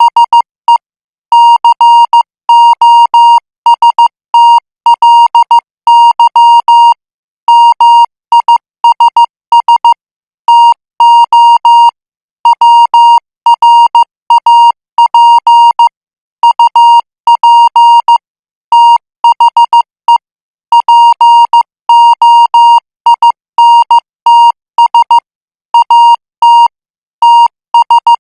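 Morse code practice tone sent at 14 words per minute: a single steady beep keyed on and off in short dots and longer dashes, with short gaps between letters and groups.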